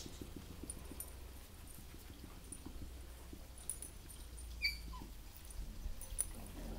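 Puppies at play, mostly quiet, with one short high squeak from a puppy that drops in pitch about two-thirds of the way through.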